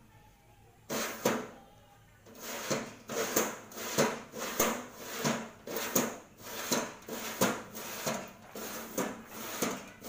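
Sickle-bar cutter of a home-built rice harvester header being worked by hand in a trial run, its toothed steel blade sliding back and forth. It makes a steady rhythm of metallic clacks, about three a second, starting about a second in.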